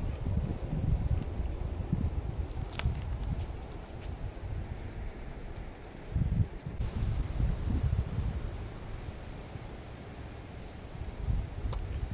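Cricket chirping in an even rhythm, about two short chirps a second, with a second, faster insect trill joining about halfway through. An uneven low rumble, like wind or handling on the microphone, runs underneath.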